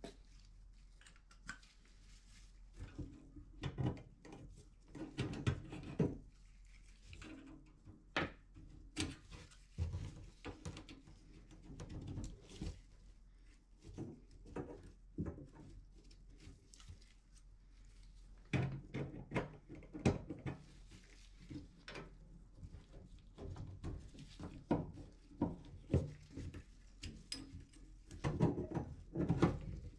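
Irregular knocks, clicks and scrapes of a brass remodel-kit shower valve body and its copper fittings being handled and pushed onto copper supply pipes inside the wall opening, with clusters of sharper knocks about five, nine, nineteen and twenty-eight seconds in.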